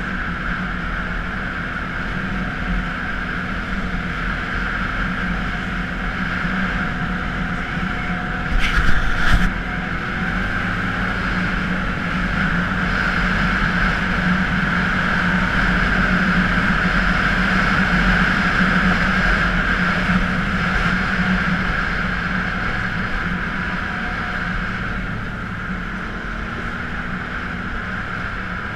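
Can-Am Outlander ATV engine running steadily under way. It swells somewhat through the middle of the ride and eases off near the end, with a short rattling clatter about a third of the way in.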